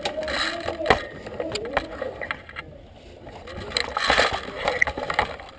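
Gear rustling and handling noise from an airsoft player under cover, with a few sharp clicks or snaps and faint voices in the background.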